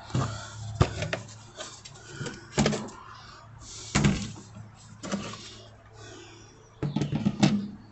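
Hard plastic clicks and knocks of a portable fridge's lid being opened and closed on its newly reversed hinge side, a few separate knocks with a small cluster near the end.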